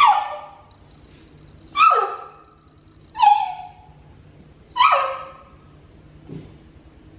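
Puppy giving four short, high yelping barks about one and a half seconds apart, each sliding down in pitch.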